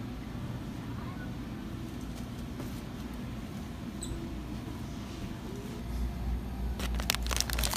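Grocery store ambience: a steady low hum with faint, indistinct voices and a few small squeaks. Near the end comes a quick run of sharp crackling clicks.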